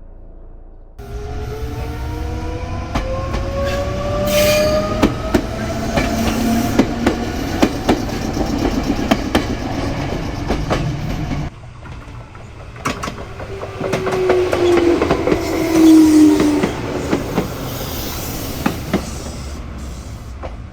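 Meitetsu electric train at the level crossing: its motor whine rises in pitch as it pulls away, over a heavy rumble, and its wheels click over the rail joints. About halfway through the sound cuts to a train whose whine falls in pitch as it slows, with the wheels clicking again.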